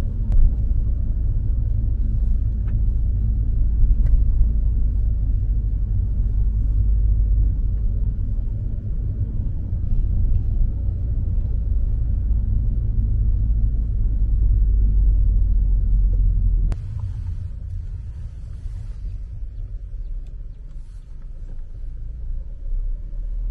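Low rumble of a car driving, heard from inside the cabin. It drops suddenly about two-thirds of the way through as the car slows down.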